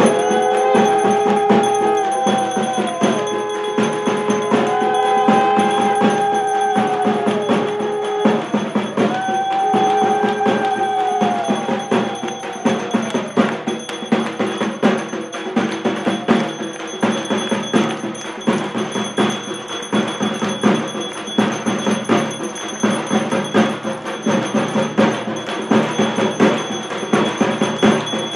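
Ritual percussion: fast, dense drumming with clanging metal and a brass hand bell ringing. In the first half, three long held tones rise and fall over the beat.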